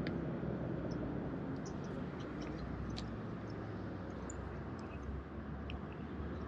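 Faint outdoor background: a steady low rumble with scattered brief, faint high chirps and ticks.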